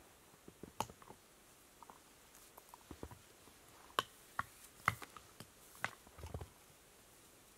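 Scattered light clicks and short rustles of gloved hands working at a spruce trunk, with a soft low thump a little after 6 seconds.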